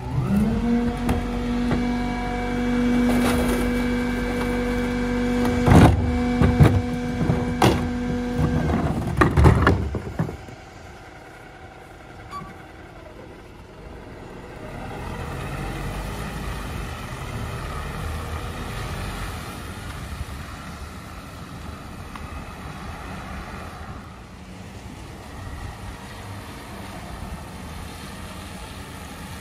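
Isuzu rear-loader garbage truck's hydraulics whining steadily as a cart is lifted and dumped into the hopper, with several loud bangs of the cart and falling trash. The whine cuts off about ten seconds in, and the truck's engine then runs on low as it moves off.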